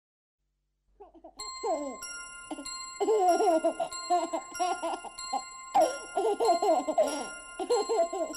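A cartoon baby's voice babbling and giggling in short bursts, with steady bell-like chime tones ringing underneath. It starts about a second in.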